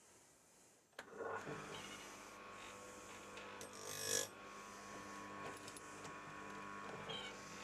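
Electric saw-chain grinder switching on about a second in and running with a steady hum, with a brief burst of grinding about four seconds in as the wheel takes a depth gauge down on the chain.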